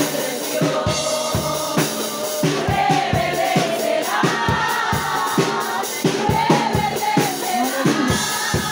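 Congregation singing a Spanish worship song together, with drums keeping a steady beat.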